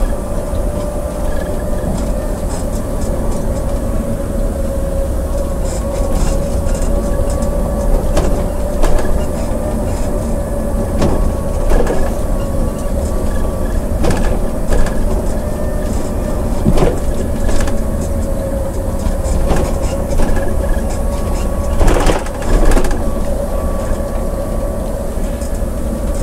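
Scania coach running down a mountain road, heard from inside the cab: a steady engine and drivetrain drone with a constant whine over deep road rumble. Short knocks and rattles from the cab come every few seconds, loudest about twenty-two seconds in.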